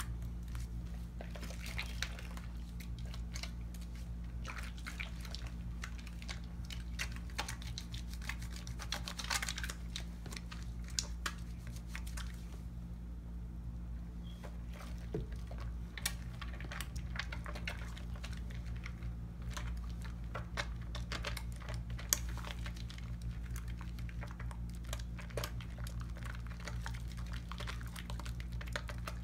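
Hands working a wet cocoa butter bar soap into a lather: soft squelching with many small irregular crackles and wet clicks, easing off briefly about halfway through. A steady low hum runs underneath.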